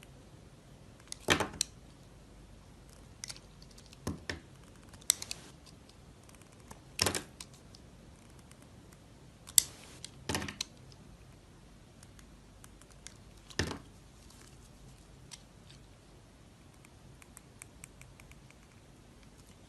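A knife cutting through dry soap: about seven short, crisp crunches at uneven intervals, each a single cut, with faint scraping ticks between them.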